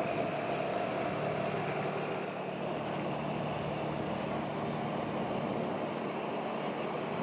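Commercial fishing boat's engine running steadily as the boat motors past, a low even hum.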